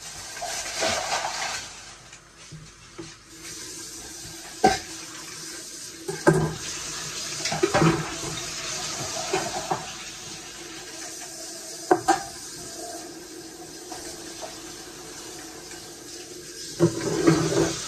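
Water running from a kitchen tap into a stainless-steel sink, with several sharp clinks and knocks as things are handled in the sink; the water grows louder near the end.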